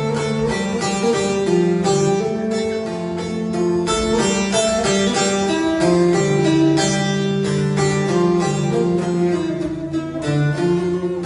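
Instrumental music: a melody on plucked string instruments over held bowed-string notes, with no singing.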